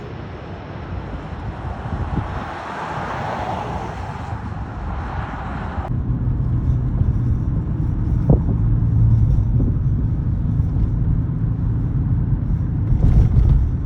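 Jet airliner noise: a rushing roar for about six seconds. It breaks off abruptly and gives way to a low, steady rumble with a hum.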